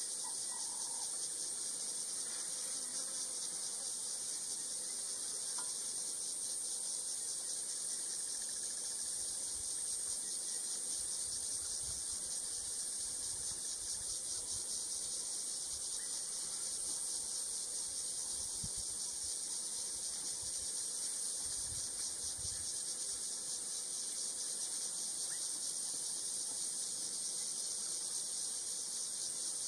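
Insect chorus: a steady, high-pitched shrilling with a fast, even pulse.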